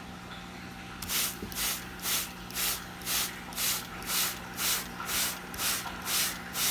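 Hand-pump spray bottle squirting water onto a frog's foam egg nest. The squirts come in a quick even run of short hisses, about two a second, starting about a second in.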